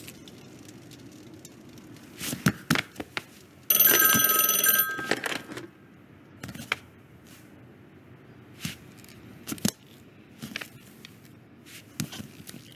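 Film sound effects: scattered clicks and knocks, with a bell ringing briefly about four seconds in, the loudest sound in the stretch.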